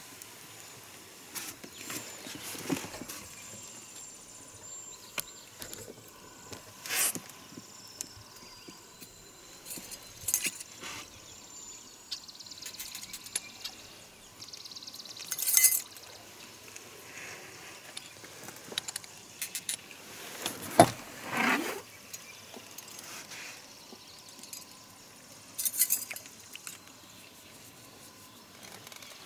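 Scattered brief splashes and clicks of a hooked rainbow trout being played close to a boat, with the knocks and clinks of rod, reel and landing net; one sharp knock about two-thirds of the way through is the loudest.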